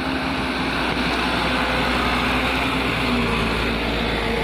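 Diesel engine of a Mitsubishi Canter 125 PS light truck laden with oil palm fruit, running steadily under load with its pitch wavering slightly.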